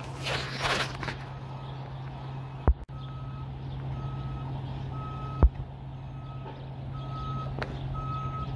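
Reversing alarm of a hi-rail pickup truck backing along the rails: one short high beep about every second, over a steady low engine hum. Three sharp clicks cut through it.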